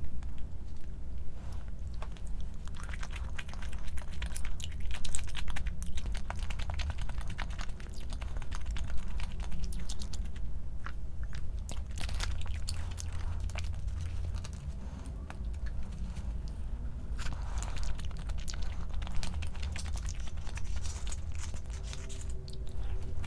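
Close-up eating sounds: chewing and crunching, with many small sharp clicks and taps scattered throughout.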